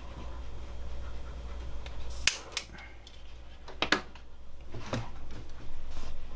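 A few sharp clicks spread over a couple of seconds as a lighter is worked to light the priming alcohol in the preheat cup of an Optimus Svea 123R brass stove.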